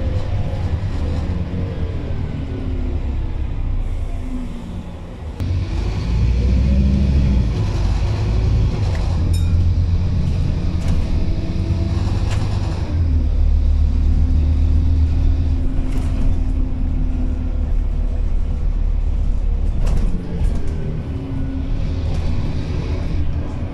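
Scania N230UD double-decker bus heard from the passenger saloon while it is under way. The engine drones, its pitch falling, rising again about five seconds in, holding steady and then falling, over a deep road rumble with a few sharp rattles.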